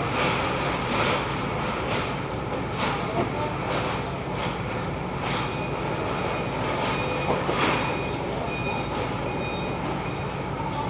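A vehicle engine running steadily with irregular knocks or clacks about once a second, and a faint repeated beeping from about six seconds in.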